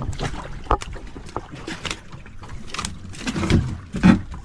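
Scattered knocks and clatter of fishing gear being handled in a wooden outrigger boat, with a sharp knock near the end as a bamboo float is lifted over the side, over a steady low hum.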